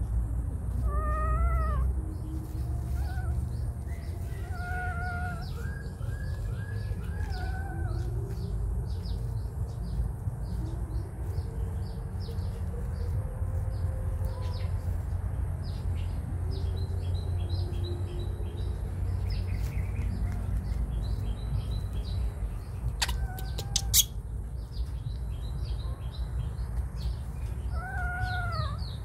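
Short, high-pitched, arching cries from a young animal, several in the first few seconds and a few more near the end, over a steady low rumble. Small birds chirp rapidly in the background from about halfway, and there is one sharp click a little before the end.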